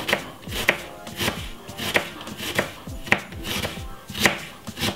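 Kitchen knife chopping a white onion on a wooden chopping board: a steady series of sharp knocks of the blade on the board, nearly two a second.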